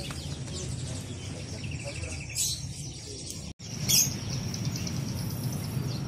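Caged small songbirds chirping, with a short trill and a few sharp high chirps, over a steady low background hum. The sound drops out for an instant a little past halfway.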